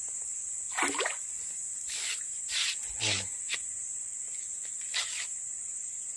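Insects buzzing steadily at a high pitch, a constant drone, with a few short voice-like calls breaking in about a second in, around three seconds and near five seconds.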